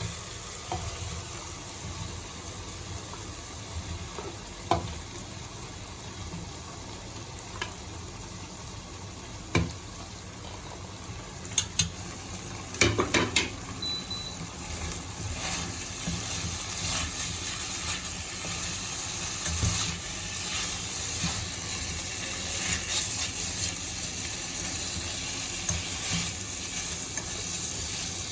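Chicken pieces sizzling and frying in a pan of butter-garlic gravy, stirred, with several sharp clicks of a utensil against the pan. The sizzle grows louder about halfway through.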